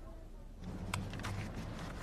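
A thick stack of paper pages being leafed through by hand: a few short, crisp rustles and flicks starting about half a second in, over a low room hum.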